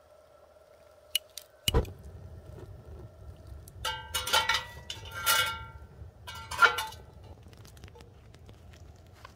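Cookware being handled: a dull knock, then several metallic clinks with short ringing tones between about four and seven seconds in.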